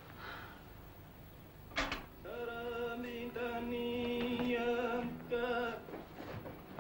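A vinyl record begins playing on a turntable: a click about two seconds in, then singing in long held notes.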